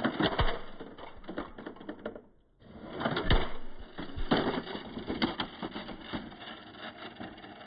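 Die-cast metal model cars crashing: a fast clatter of small knocks and rattles, with a brief break just after two seconds and then the heaviest hits, one with a low thud, a little after three seconds and again around four and five seconds.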